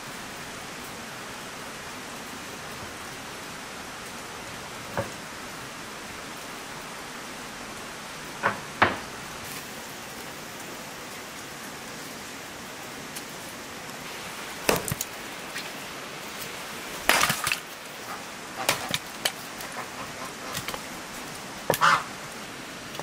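Scattered sharp knocks and cracks from bricks being set down against each other and dry wood being split off a log by hand, over a steady hiss.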